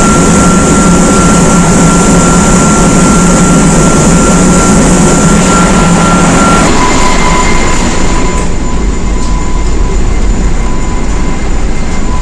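Loud, steady engine-room machinery noise around a firing auxiliary steam boiler. Just over halfway through, the burner's low hum and a steady whine cut off and a different steady tone starts, as the flame-failure protection trips the burner once the timer relay runs out.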